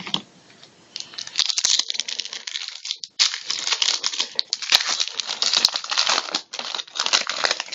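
Trading-card pack wrapper crinkling and tearing as it is opened by hand, a dense run of crackles starting about a second in, with a short break near the middle.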